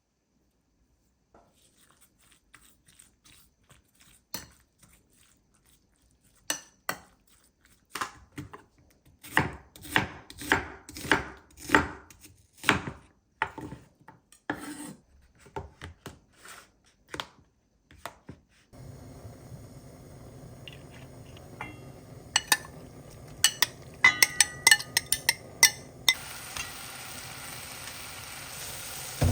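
Kitchen cooking sounds: a run of irregular knocks and clatters of utensils and dishes, such as a knife on a cutting board. About two-thirds of the way in, a steady hiss comes in under further clinks, and it grows brighter near the end.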